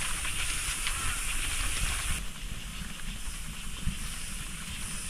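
Steady hissing noise over a low rumble, with a few faint crackles; the hiss thins out abruptly about two seconds in.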